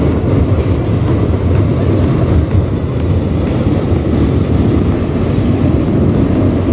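Hot air balloon's propane burner firing in one long, loud, steady blast, heating the envelope as the balloon stands up on the ground.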